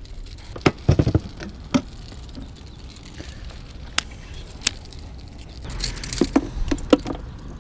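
Irregular knocks and clicks of someone moving about and handling gear, with a small cluster about a second in and several more near the end.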